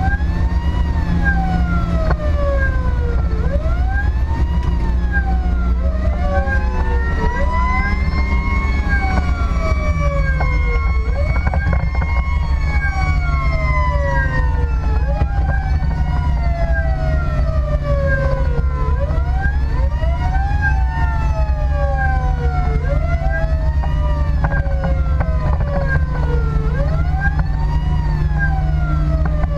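Emergency sirens on a responding fire vehicle, heard from inside the cab, wailing up and down every few seconds, with two siren tones overlapping out of step. A steady low engine and road drone runs underneath.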